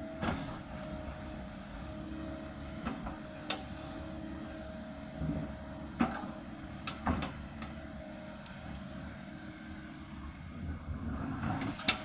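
Kobelco 220 hydraulic excavator's diesel engine running steadily with a thin steady whine, broken by about five sharp knocks as the bucket digs and swings. The loudest knocks fall about six seconds in and near the end.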